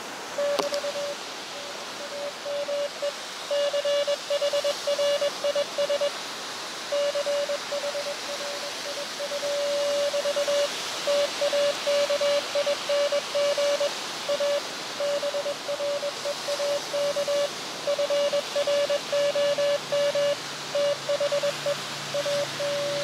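Morse code (CW) from the speaker of an Elecraft KX2 transceiver: a single tone of about 600 Hz keyed rapidly on and off over steady band hiss. It is the other station's message being received, sent fast.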